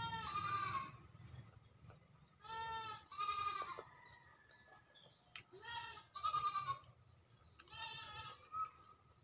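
Livestock bleating in short pitched calls, often two at a time, repeating every two to three seconds.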